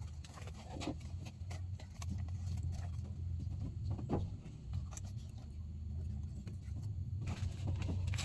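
Wood fire crackling in a tungku stove: irregular sharp pops and clicks over a steady low rumble.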